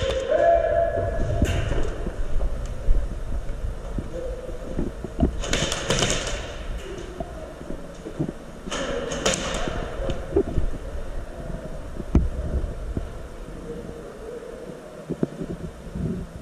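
A player's footsteps and gear knocking while moving, with two short noisy bursts about six and nine seconds in.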